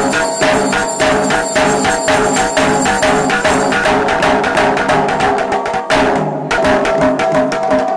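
Sri Lankan temple drumming: fast strokes on double-headed drums with a held, piping melody over them. The strokes come faster about four seconds in and break off briefly about six seconds in before starting again.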